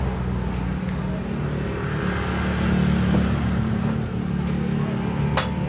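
Steady low engine hum from a running motor vehicle, with a single sharp click near the end.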